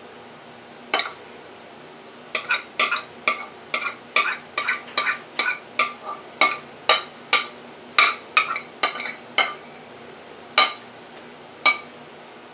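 A metal spoon knocking and clinking against a mixing bowl and a metal baking pan as mac and cheese is scraped out of the bowl. There is one tap about a second in, then a quick run of sharp, ringing taps at about two or three a second, then two more spaced taps near the end.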